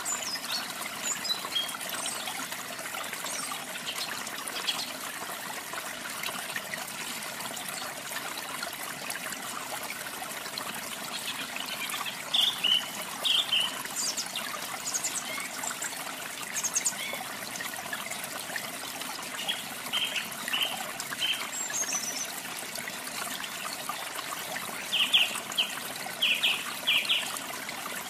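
Steady trickling, running water, with small birds chirping now and then in short quick clusters of notes; the loudest cluster comes near the end.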